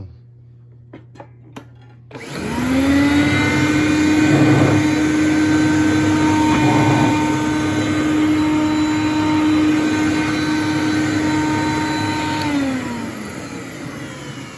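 Hoover Conquest upright vacuum cleaner: a few light clicks, then the motor starts about two seconds in and quickly rises to a steady hum. It runs loud and steady for about ten seconds, then is switched off and winds down with a falling pitch near the end. The owner thinks its brush roll bearings probably need greasing.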